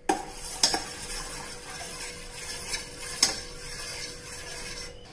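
Steel spoon stirring sugar water in a stainless-steel saucepan, scraping around the pan with a few sharp clinks against the metal: one near the start, one under a second in and one a little past three seconds.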